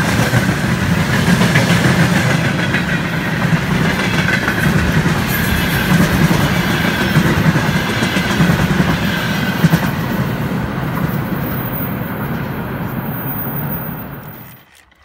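Container freight train's loaded flatcars rolling past at close range: a steady, loud running noise of wheels on rail that drops away sharply near the end.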